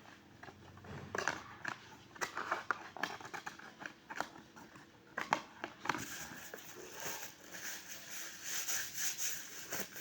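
Blind-box packaging being handled, with scattered clicks and crinkling rustles of cardboard and plastic as a card and figure are slipped back into the box.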